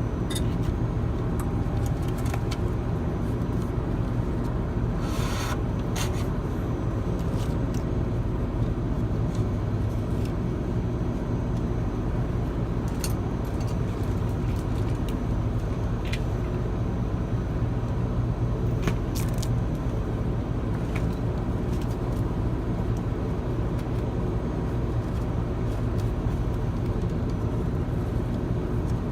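A steady low mechanical rumble, with a few short clicks and light scrapes now and then, as of parts or tools being handled.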